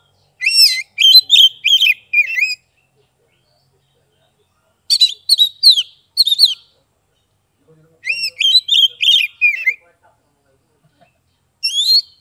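Oriental magpie-robin (kacer) singing loudly: quick runs of clear whistled notes that swoop up and down in pitch, in three phrases with pauses between them, and a fourth starting at the very end.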